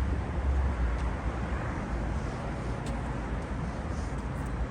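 Steady low rumble with an even hiss of background noise, with no distinct events.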